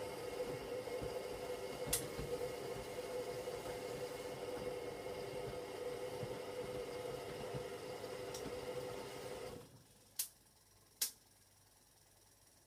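Hoover washing machine on a cotton 60 wash of towels: the drum motor runs with a steady whine while the drum turns, and the laundry thuds about unevenly. It stops abruptly about ten seconds in, followed by two sharp clicks.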